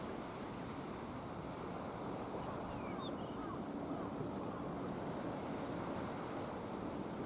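Steady outdoor wind and sea wash, with wind buffeting the microphone. A few faint short chirps come about three to four seconds in.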